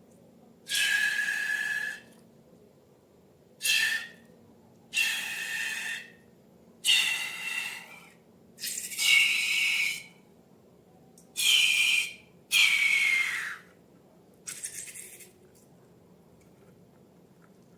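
Air squealing and hissing out of balloon necks in about eight short bursts of around a second each, one sliding down in pitch, the last fainter.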